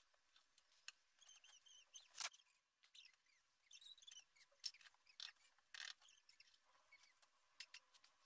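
Faint, irregular scratches of a pencil stroking across drawing paper, a few strokes louder than the rest. A few faint, high, wavering chirps come in about a second in and again around four seconds in.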